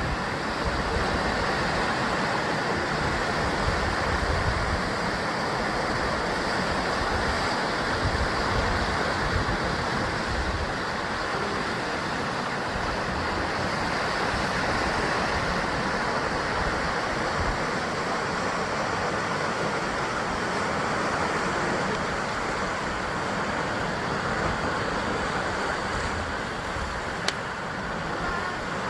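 Sea waves surging and breaking against the basalt column cliffs of the Jusangjeolli coast: a continuous churning wash of surf with a low rumble underneath. There is a single sharp click near the end.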